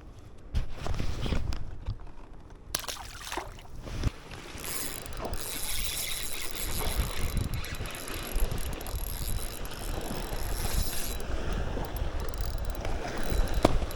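Fishing reel being cranked, a steady mechanical clatter of gears and clicking as a fish is reeled in. Knocks and handling bumps come in the first few seconds.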